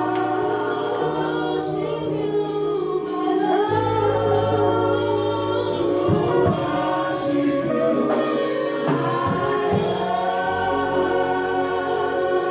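Gospel choir singing with instrumental backing: sustained bass notes that shift every few seconds and regular percussion hits.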